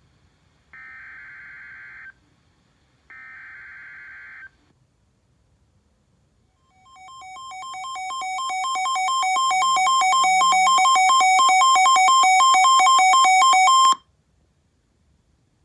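Two NOAA Weather Radio SAME digital header bursts, harsh buzzing data about a second and a half each, followed a few seconds later by a weather radio's alert alarm: two alternating electronic beep tones pulsing rapidly and growing steadily louder for about seven seconds before cutting off. It is the sign that a new warning is being broadcast.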